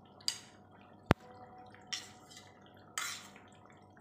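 Metal spoon scraping and tapping on a ceramic plate as dried coconut paste is spooned off it, with one sharp, ringing clink about a second in and a few short scrapes after.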